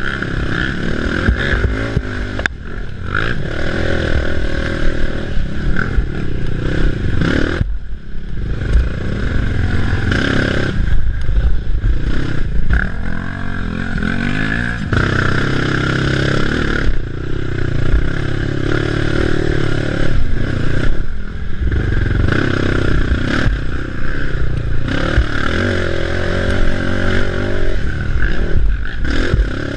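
Race ATV engine revving hard and dropping off again and again as it is ridden over rough terrain, with frequent knocks and rattles from the machine. The throttle chops off sharply a few times, about a quarter of the way in, around halfway and again a little later.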